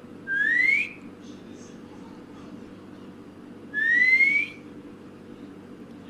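Rose-ringed parakeet giving two rising whistles, each under a second long and about three seconds apart, with a low steady hum underneath.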